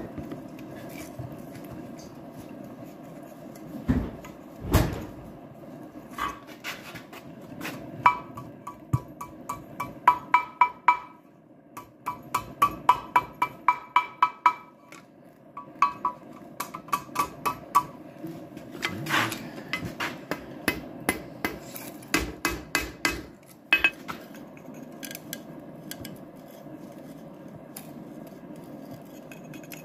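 Blacksmith's hammer striking hot steel on an anvil while forging a coal rake: a series of ringing blows, with quick runs of lighter taps around the middle and a couple of heavier dull thuds early on.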